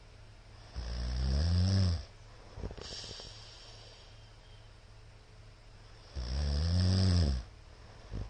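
A middle-aged man snoring loudly: two long, low, rattling snores about five seconds apart, each rising a little in pitch, with a breathy exhale after the first and a short snort near the end.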